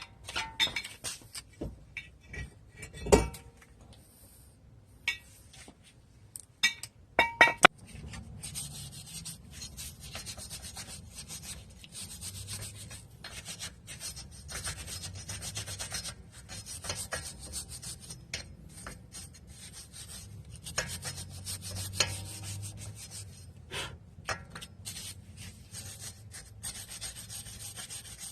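Scattered metallic clinks and knocks of tools and parts being handled, then a steady rubbing scrape with small clicks through it.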